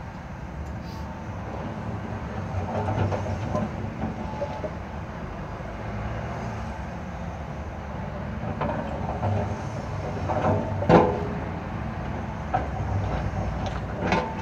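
Caterpillar wheeled excavator's diesel engine running steadily while its bucket scrapes and knocks against broken road slabs; several clunks of slab and bucket, the loudest about eleven seconds in.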